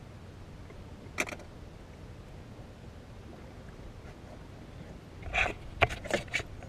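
Steady low background rumble on a small open boat, with one sharp knock about a second in and a quick run of knocks and rubs near the end as the action camera is grabbed and handled.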